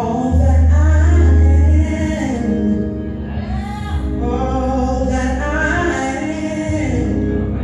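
Live gospel music: a woman singing lead over accompaniment, with a loud low bass note held for about a second and a half near the start.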